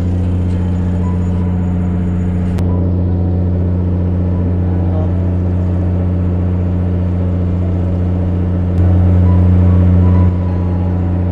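A fishing boat's engine running steadily at anchor, a low even hum. It swells louder for about a second and a half near the end.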